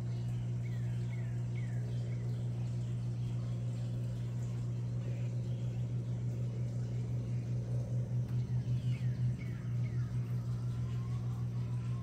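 Birds chirping over a steady low hum: a few quick downward-sliding chirps near the start and again about eight to nine seconds in. The hum is the loudest sound throughout and throbs unevenly for a few seconds in the middle.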